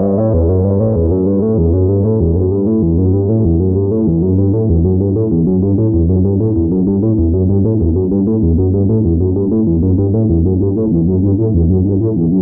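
Behringer Model 15 analog synthesizer playing a fast, repeating sequence of notes, heavy in the bass. The filter is mostly closed, so the tone stays dark.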